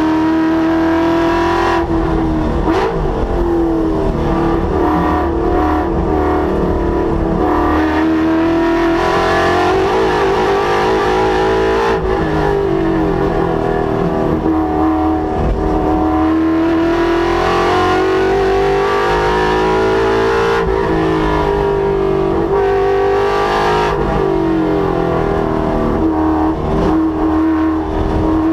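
Ford Mustang's Coyote 5.0-litre V8 driven hard on track, revs climbing and falling again and again as it accelerates, shifts and slows for corners.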